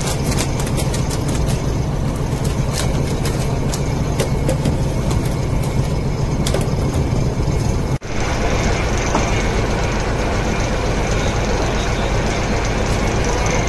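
A fishing boat's engine running steadily with a constant low hum, and scattered clicks and knocks over the first half. The sound drops out for an instant about eight seconds in, then carries on.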